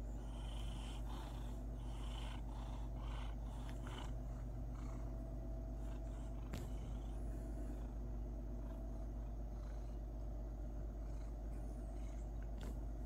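Domestic cat purring steadily while being petted, a low continuous rumble, with soft brushing of fingers on fur in the first few seconds and a brief click now and then.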